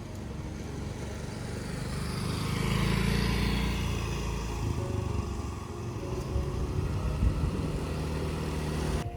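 A motorbike passing by on a road, its engine and tyre noise swelling to the loudest point about three seconds in and then fading, with engine rumble of traffic continuing after.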